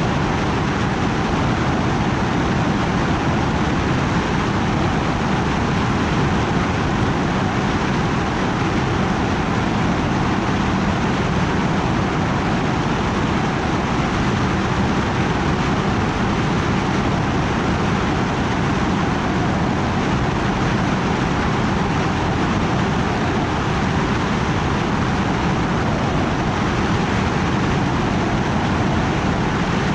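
Steady rushing noise from a drone in flight, even and unchanging throughout.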